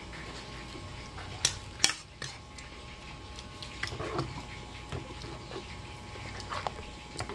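Metal spoon clinking and scraping against a bowl of chocolate rice porridge while eating, with two sharp clinks about a second and a half in and softer taps after.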